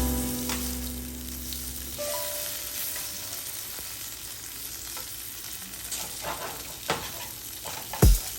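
Food frying in a pan, a steady sizzle with a few sharp clicks. Music with held notes fades out over the first two seconds, and a strong drum beat starts just before the end.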